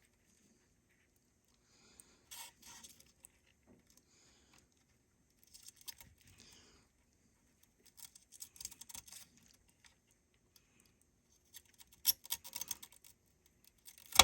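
Faint, scratchy handling noises with small clicks, in several short spells of about a second each, from soldering tools and solder wick being worked on an old factory solder joint.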